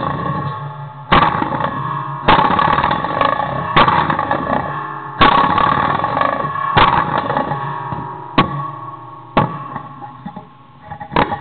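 Homemade noise box (a metal box fitted with door-stop springs, coil springs, wire strings and long steel rods) plucked and struck by hand: about seven sharp twangs spaced a second or so apart, each ringing on with a steady metallic tone and slowly dying away.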